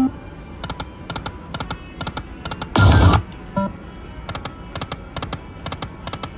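Aristocrat Lightning Link slot machine spinning, with a run of quick electronic clicks as the reels land, about three or four a second. A louder burst of machine sound comes about three seconds in.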